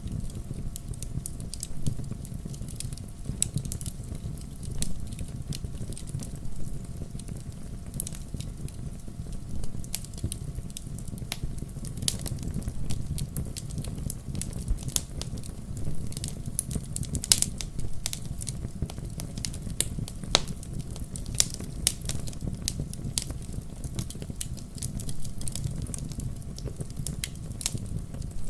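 Wood campfire burning, crackling and popping in irregular sharp clicks over a steady low rumble of the flames.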